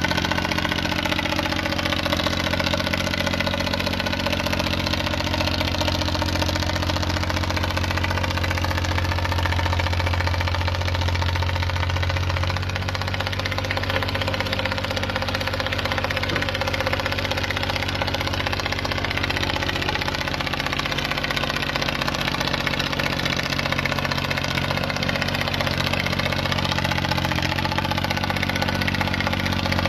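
Diesel engine of a tracked earthmoving machine running steadily, a low even hum with a slight shift in pitch about twelve seconds in.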